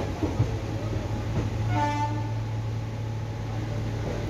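Passenger train running through a yard, heard from aboard: a steady low hum with wheels clicking over rail joints and points. A train horn gives one short toot about two seconds in.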